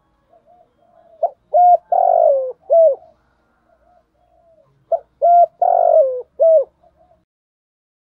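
Spotted dove singing its cooing song (gáy) twice, about three and a half seconds apart. Each phrase is four notes: a short note, a second short note, a longer note that falls in pitch, then a short closing note. Faint soft coos come between the phrases.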